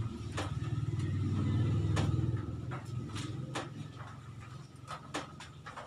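Low rumble of a vehicle going past, swelling to its loudest about two seconds in and then fading away, with scattered sharp clicks and smacks of people eating.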